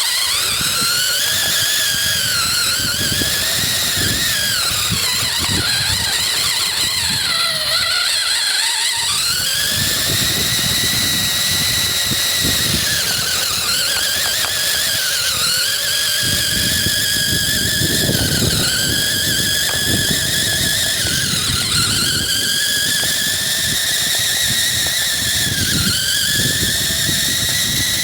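1/5-scale RC car driving: a high whine from its motor and drivetrain that rises and falls again and again with the throttle, over a rough rushing rumble of the tyres working through snow.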